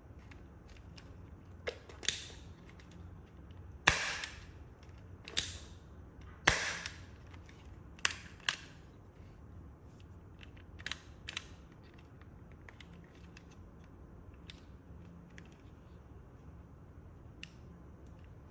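Revolver parts being handled and fitted together: a series of sharp clicks and snaps at uneven intervals, the loudest about four and six and a half seconds in, then only faint ticks after about eleven seconds.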